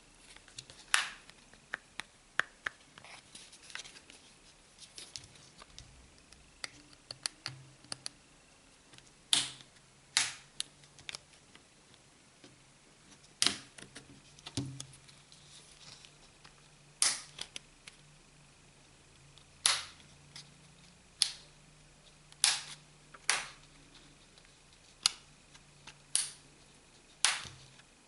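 Sharp, irregular plastic clicks and snaps, a dozen or so loud ones among many smaller ticks: the back cover's plastic retaining clips releasing as a plastic card is worked along the seam of an Orange Fova phone.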